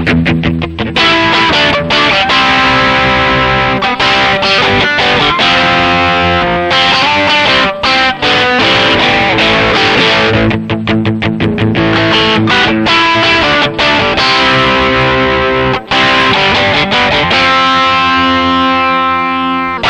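Fender Stratocaster electric guitar played through a Marshall MG100FX 100-watt guitar head: loud chords and riffs with short, choppy breaks between held chords.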